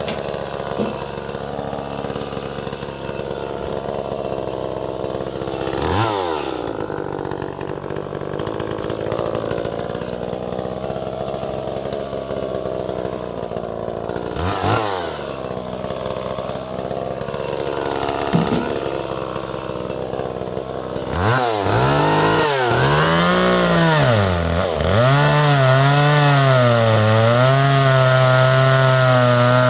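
Small 30cc Echo two-stroke chainsaw idling, blipped twice, then revved up and down repeatedly before being held at full throttle near the end, louder, with its pitch wavering.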